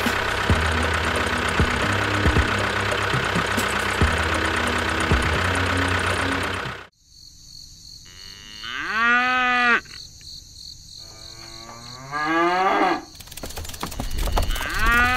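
A tractor engine running steadily with a few knocks, cutting off abruptly about seven seconds in. Then several long, drawn-out cow moos follow over a steady high chirping of crickets.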